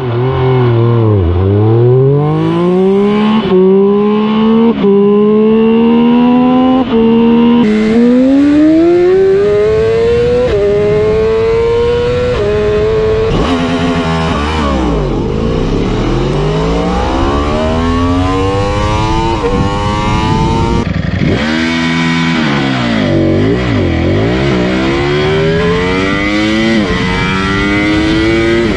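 A run of liter-class superbike engines played one after another: a Triumph Speed Triple three-cylinder, then a BMW S1000RR inline-four, a Yamaha R1 inline-four and a Ducati Panigale V4. Each clip has the revs climbing and dropping sharply, like acceleration through quick upshifts, with the engine note changing abruptly every six to eight seconds as the next bike starts.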